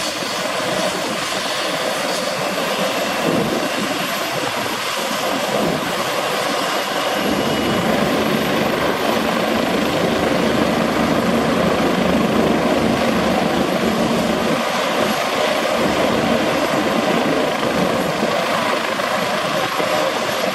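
Bell 429 GlobalRanger helicopter running on the ground with its rotors turning: the steady whine of its twin turboshaft engines under the beat of the main rotor. The sound grows louder and fuller in the low end about seven seconds in.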